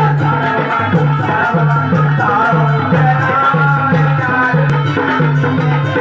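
Instrumental passage of Hindi devotional jagran bhajan music: a steady drum beat, about two strokes a second, with a sustained melody over it.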